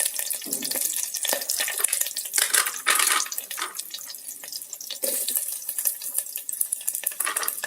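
Garlic and green chilies sizzling in hot oil in an electric kettle: a steady hiss with frequent crackles.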